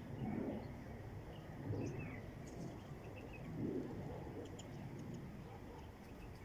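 Faint, scattered bird chirps over a low background rumble, with a few louder low swells in between.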